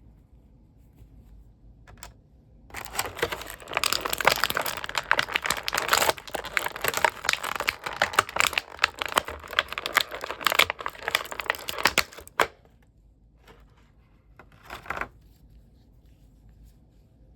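Action-figure packaging being handled: a dense crinkling and tearing for about ten seconds, then a short crinkle a couple of seconds later.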